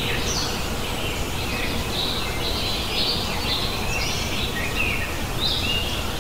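Birds chirping on and off over a steady low rumble of outdoor background noise.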